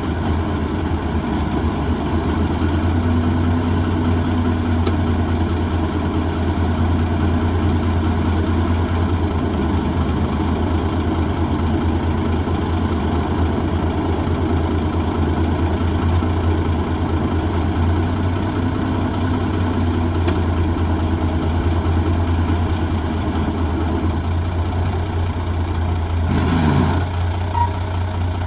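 The M816 wrecker's diesel engine runs steadily at idle. Near the end, a brief rising sound cuts across it.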